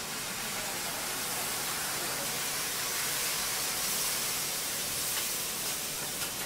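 Steady, even hiss from a hot teppanyaki griddle, the sound of food sizzling and steaming on the steel plate.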